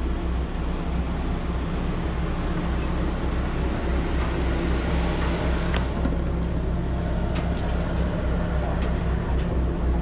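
Small passenger ferry's engine idling steadily at the pier, a constant low hum, with a few light clicks in the second half from footsteps on the steel landing ramp.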